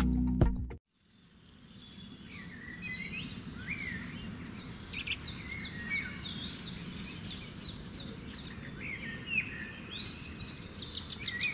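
Background music cuts off about a second in; after a short gap comes outdoor ambience with birds chirping, including a run of quick repeated calls in the middle, over a faint steady low rumble.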